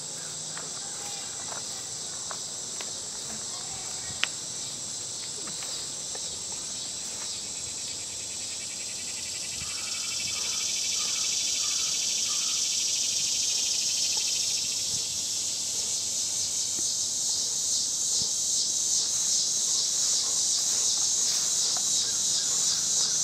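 Steady, high-pitched chorus of insects that grows louder about ten seconds in. A single sharp click stands out a few seconds in.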